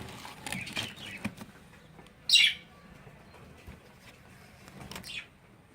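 Cockatiels calling: one short, loud, high call about two seconds in, with fainter calls before it and again near the end.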